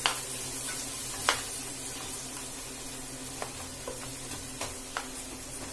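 Kitchen knife slicing tomatoes and tapping sharply on a plastic cutting board, a handful of irregular taps, over a steady sizzle of onions frying in oil.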